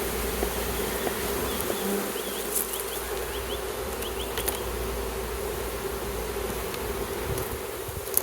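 Honeybees buzzing around an open beehive, a steady hum of many bees.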